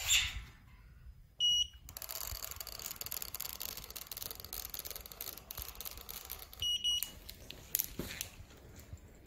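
Handheld inkjet printer beeping once, then a steady rustling hiss for about five seconds as it is swept across a steel drum printing a line of text, then beeping again.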